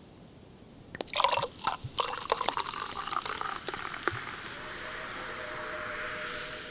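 Champagne sound effect: after a short pause, liquid pours and drips into a glass with a run of small sharp clicks, then settles into a steady fizzing hiss. Quiet music comes in underneath in the last couple of seconds.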